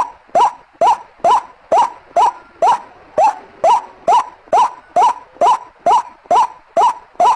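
White-breasted waterhen (ruak-ruak) call used as a bird lure: a short, sharp rising note repeated evenly, a little over twice a second, about sixteen times.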